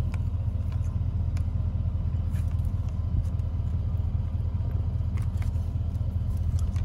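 A motor vehicle's engine idling, a steady low rumble, with faint crinkles of a plastic bread bag being handled over it.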